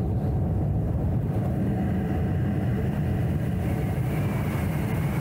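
Steady wind rushing over the microphone while descending under an open parachute canopy: a constant low rumble with no break.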